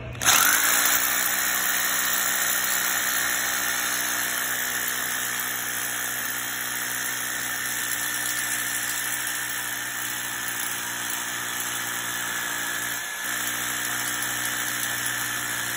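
Ryobi hammer drill boring into a concrete floor in hammer-and-rotation mode, drilling the hole for a wedge anchor: a steady motor whine with rapid hammering. It starts abruptly and dips briefly once near the end.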